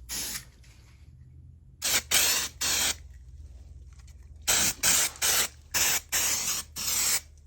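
Aerosol paint-stripper spray can being sprayed in short hissing bursts, a few longer ones at first and then quicker, shorter bursts of about two a second from the middle on.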